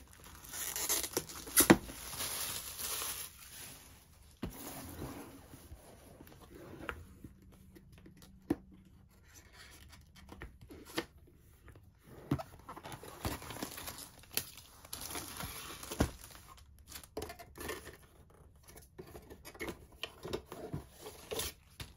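Handling of a diamond-painting kit's cardboard box and plastic packaging: plastic crinkling and tearing, cardboard sliding and scraping on a table, in irregular short bursts with a few sharp knocks.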